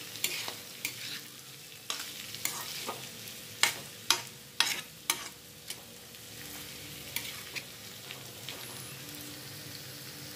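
A metal spatula scrapes and knocks against a black kadai while a dry, crumbly mix of zawngtah (stink beans) and dried red chillies is stir-fried over a low sizzle. The strokes come about once or twice a second for the first six seconds, then thin out to a few.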